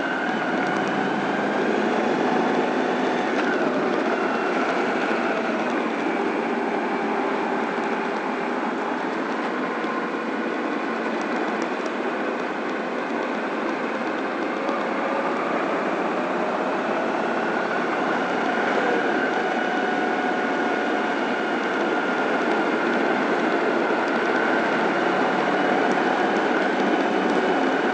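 Honda ST1100 V4 engine running under light throttle in slow stop-and-go traffic, heard from a camera mounted on the bike. Its pitch drifts slowly up and down over steady wind and road noise.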